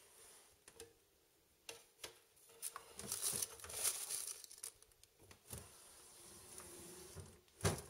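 Plastic food packaging in a freezer drawer rustling and crinkling as it is handled, with scattered light knocks, and one sharp knock near the end.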